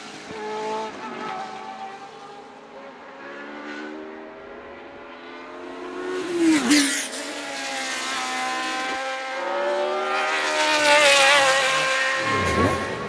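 Historic Formula One cars' normally aspirated racing engines running at high revs, several at once. One car passes quickly about six and a half seconds in, its pitch dropping. A louder one builds from about ten seconds, peaks around eleven and falls in pitch as it passes near the end.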